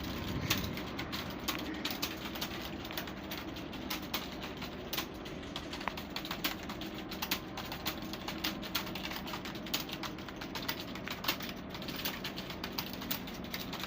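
Fast, continuous typing on a computer keyboard: a steady, rapid run of key clicks.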